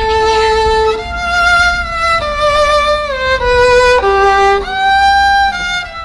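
Outro music: a solo violin playing a slow melody of long held notes, about one a second, sliding between some of them.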